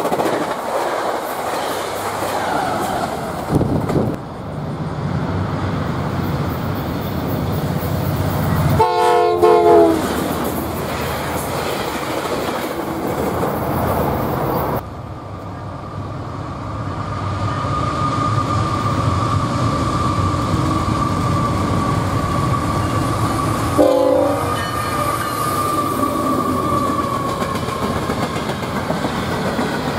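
A CSX freight train of empty rock hopper cars rumbling and clacking past on jointed track. A locomotive horn sounds a short chord about a third of the way in and again late on. A steady high wheel squeal runs through the later part.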